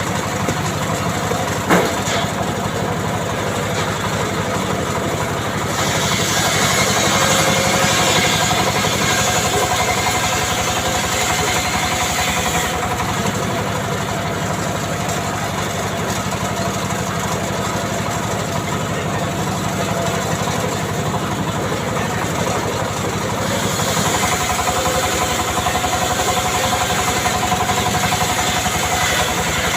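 Small engine of a wood-cutting saw running steadily, with a sharp knock about two seconds in. Twice it grows louder, with added hiss, for several seconds at a time.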